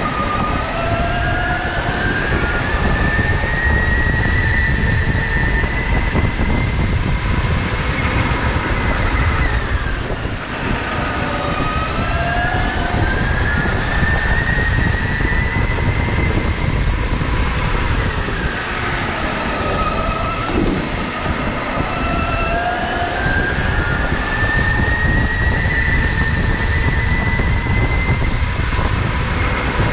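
Go-kart under hard driving: its motor whine climbs in pitch through each straight and drops sharply when the driver lifts for the corners, three times, over a steady low rumble of tyres on the track.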